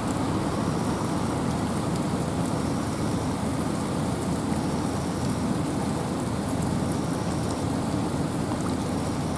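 Steady rain falling in a forest, with a low, even wash of wind and scattered drops ticking on leaves.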